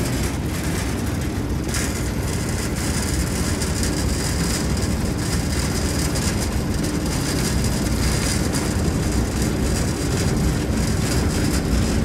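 Steady rushing noise with a low rumble inside a moving passenger cable car cabin, open at the side, as it travels along its cable across the valley.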